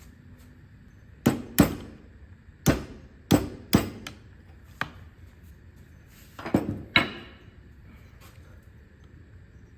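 Hammer tapping a punch to drive the wrist pin out of a Stihl 024 chainsaw's piston. About eight sharp strikes come in uneven groups, and the last one rings briefly.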